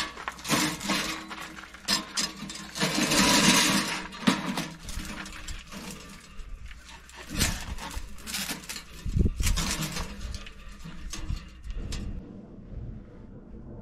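Stainless-steel stovepipe sections of a tent wood stove clinking, scraping and sliding against each other as the chimney is fitted by gloved hands, with the tent canvas rustling. The handling stops about twelve seconds in.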